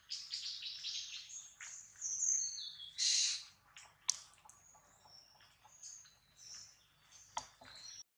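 Birds chirping in short, high whistled calls and trills, some sliding down in pitch, with one sharp click about four seconds in.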